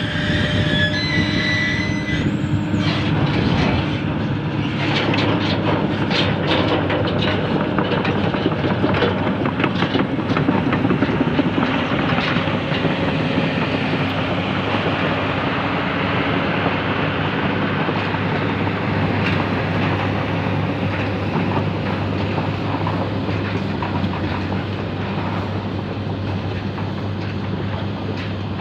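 Crawler excavator travelling: the diesel engine runs steadily under the clatter and rattle of its steel tracks.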